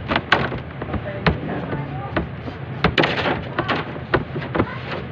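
Irregular knocks and taps of hands and dough on a metal worktable while ensaymada dough is shaped and rolled by hand, over a steady low hum.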